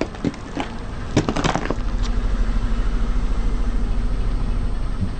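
A car tyre rolling over and crushing something brittle: a quick run of cracks and crunches in the first two seconds. After that the car's engine runs steadily.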